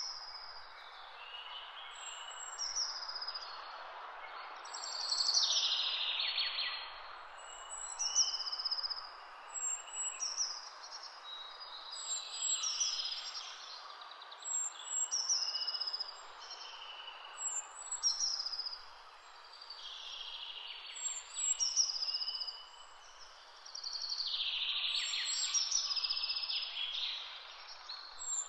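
Songbirds singing along the lane: a short, high chirping phrase repeats every second or two, with louder trilling runs now and then. A steady rushing noise runs underneath.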